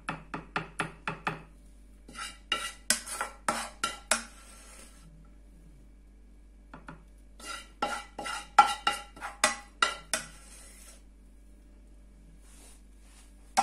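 A serving spoon clinking and scraping against a frying pan while sauce is scooped out and spooned over fish. The taps come in three quick runs, several a second, with short pauses between.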